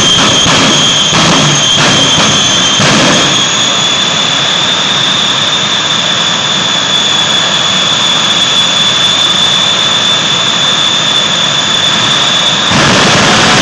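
Jet truck's jet engine running loud at the drag strip start line: a roar with a steady high-pitched whine that steps up slightly about three seconds in and then holds. About a second before the end the whine drops away and the roar turns louder and fuller.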